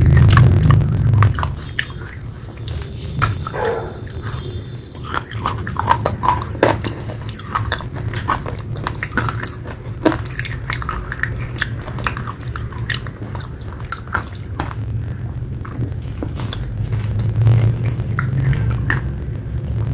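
Close-up chewing of a mouthful of soft red clay paste: a soft crunch with wet clicks and smacks of the mouth, over a low hum that is louder in the first second or so.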